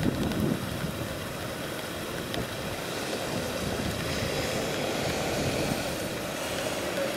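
Wind buffeting the microphone: a steady, rough rumble.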